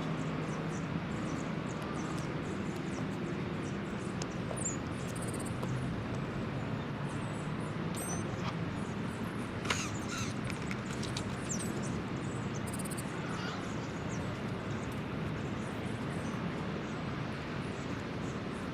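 Steady outdoor background noise with scattered high bird chirps through the middle, and a single sharp click about ten seconds in.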